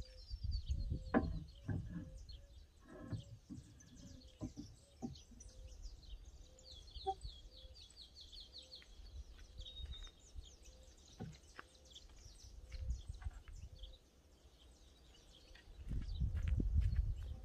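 Birds chirping, with a quick trill in the middle, over a low outdoor rumble. In the first few seconds there are several knocks and clunks from a car wheel being handled against a rear-mounted spare-wheel carrier.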